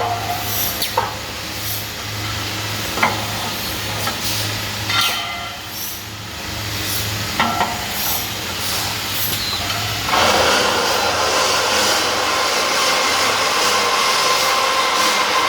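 Industrial pipe-processing machinery running with a steady low hum and scattered knocks and clicks; about ten seconds in, a loud steady hiss starts suddenly and continues.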